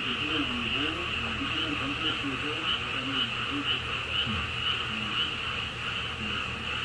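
A steady high-pitched animal chorus, pulsing about twice a second, with faint radio talk underneath.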